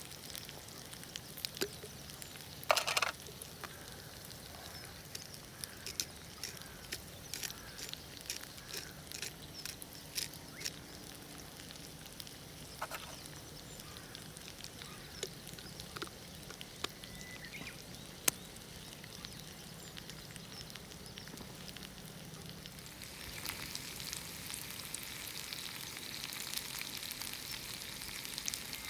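Sliced potatoes for German potatoes frying in a pan over a campfire: a steady sizzle with scattered pops and clicks, growing louder about 23 seconds in.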